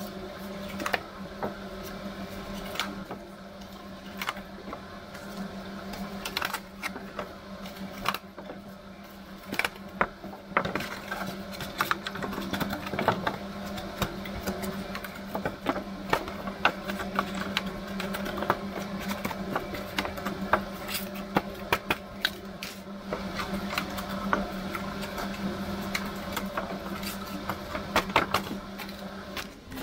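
Irregular clicks and knocks of small hard objects being handled, over a steady low machine hum.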